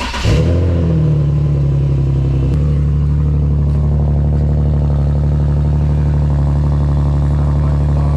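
Infiniti G37's 3.7-litre V6 cold start: the engine catches just after the starter cuts out and settles into a fast cold idle, which drops a step about two and a half seconds in and then holds steady.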